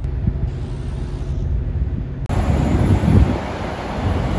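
Wind buffeting the microphone outdoors, a loud low rumble that swells and falls, with a sudden change to a brighter hiss about two seconds in.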